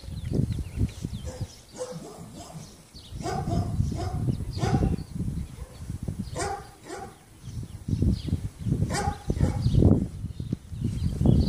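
Dogs barking, short barks in a few separate groups, over a low rumbling noise.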